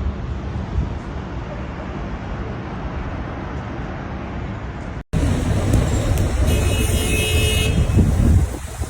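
City street traffic noise with a steady rumble. About five seconds in, the rumble breaks off and louder traffic follows. A car horn sounds for about a second in that louder stretch.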